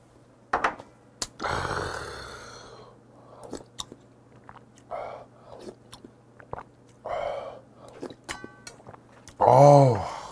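A person eating and drinking at close range. A shot of soju goes down with a sharp exhale, then come slurps and chewing of spicy fish-bone stew (maeuntang) from a spoon, and a loud voiced 'ahh' near the end.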